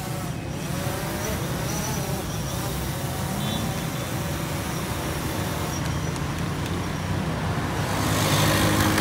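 Road traffic passing at a city intersection, mixed with the steady buzz of a quadcopter drone's propellers hovering close by. The sound grows louder about eight seconds in.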